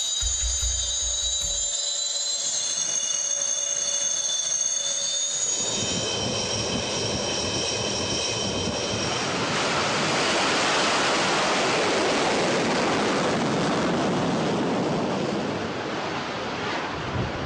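Jet engine: a high whine of several steady tones fades out during the first few seconds while a loud, even rushing roar builds up about a third of the way in and carries on, easing slightly near the end.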